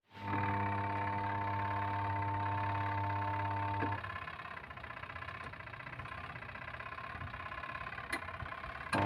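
Washing machine motor humming steadily for about four seconds, then cutting off with a click. A quieter rattling noise follows, and the hum starts again with a click near the end.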